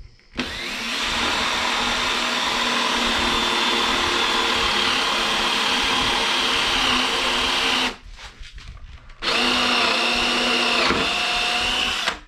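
Electric drill boring holes through a wooden board with a bit just over 3/8 inch. A steady motor whine runs for about seven seconds, its pitch sagging slightly as the bit loads in the wood. It stops for about a second, then a second, shorter run of about three seconds follows.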